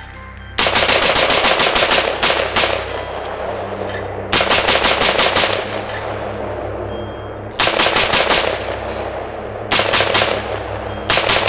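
AR-15 rifle fired semi-automatically as fast as the trigger can be pulled, in several quick strings of shots broken by short pauses. Echo rings after each string.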